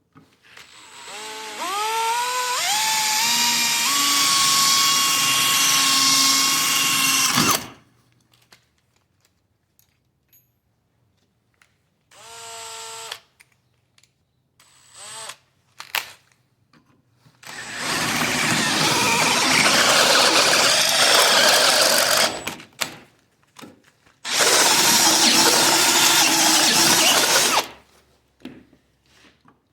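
Electric angle grinder spinning up with a rising whine to a steady high pitch and running free for several seconds, a short burst about halfway, then two stretches of several seconds each of rough, noisy grinding on steel.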